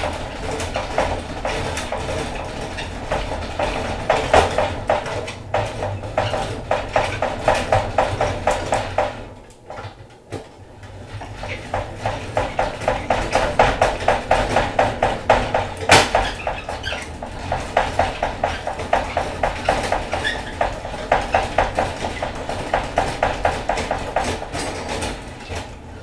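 Honey extractor spinning comb frames, a steady rhythmic metallic rattle of several beats a second. It dies down about ten seconds in, then picks up again.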